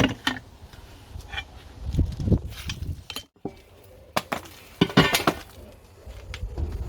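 Irregular knocks and metallic clinks from hand tools and a wheel rim being worked during a tyre change, over a low rumble. The strongest knocks come about two seconds in and again about five seconds in.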